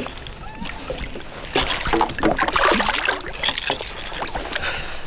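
Water splashing and sloshing beside a boat as a hooked pike is grabbed by hand at the surface and worked free of the lure. The splashes are irregular and busiest in the middle.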